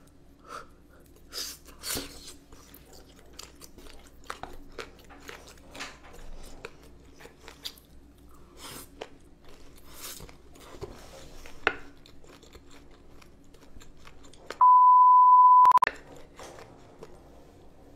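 A person chewing mouthfuls of spicy boneless chicken feet close to the microphone, with many short irregular clicks of biting and chewing. Near the end, a loud steady beep lasts about a second and is the loudest sound.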